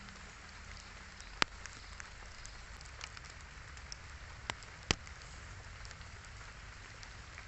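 Light drizzle falling: a steady hiss with scattered sharp ticks, three louder ones about a second and a half, four and a half and five seconds in.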